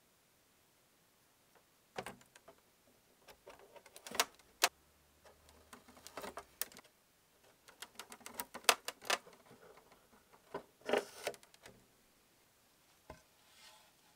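Light, irregular clicks, taps and short scrapes of small parts being handled with tweezers: painted knobs on screws being set into a styrofoam block. It starts about two seconds in and thins out after about eleven seconds.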